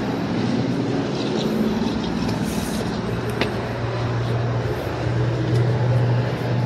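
Steady low mechanical hum over a rumbling background, growing louder in the second half, with a single sharp click about halfway through.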